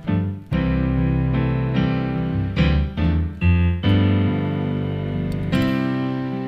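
Keyboard with a piano sound playing slow chords over held bass notes, the chords changing every half second or so.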